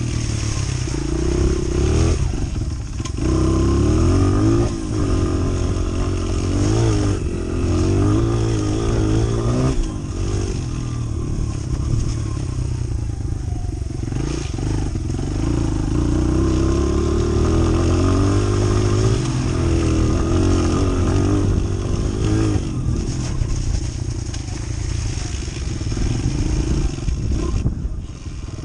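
Small single-cylinder four-stroke trail motorcycle being ridden off-road, its engine revving up and dropping back over and over as the throttle is opened and closed.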